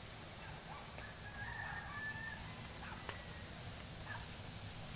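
Rooster crowing faintly once, a held call about a second long, over a low steady background.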